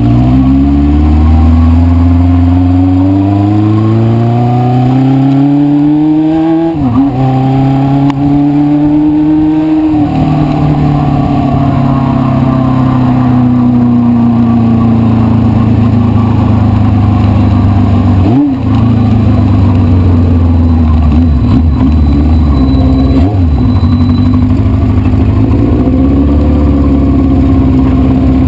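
1973 Honda CB500 Four's air-cooled inline-four engine under way, pulling through the gears: the revs climb, drop at a shift about seven seconds in, climb again and drop at another shift about ten seconds in. It then runs at fairly steady revs, with brief dips at further shifts.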